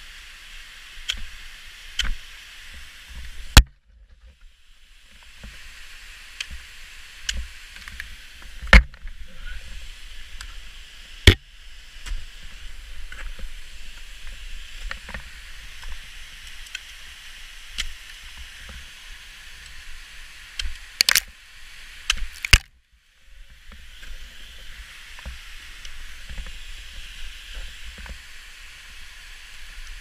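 Technical ice axe picks striking the ice of a frozen waterfall: about five sharp, loud strikes several seconds apart, with smaller ticks and knocks between them, over a steady hiss.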